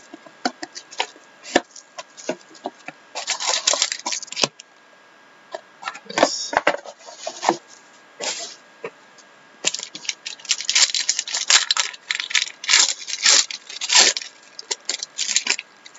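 A trading-card box and its shiny pack wrapper being handled and torn open: irregular crinkling, rustling, tearing and sharp clacks of packaging, busiest in the last several seconds.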